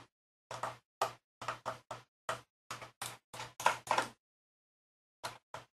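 Small Phillips screwdriver working a tiny screw out of a laptop's underside: a run of light, irregular clicks and taps, about a dozen in four seconds, a pause, then two more near the end.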